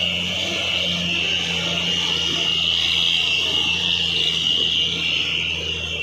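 Cargo trucks' diesel engines running with a steady low hum, beneath a loud, high, hissing buzz that swells toward the middle and eases near the end.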